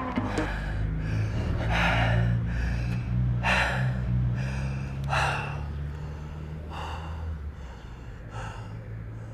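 A man panting hard after exercise: loud, gasping breaths about every one and a half to two seconds, growing quieter toward the end, over a low steady hum.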